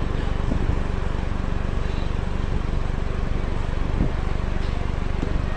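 Steady background hiss with a low hum underneath, with a few faint clicks.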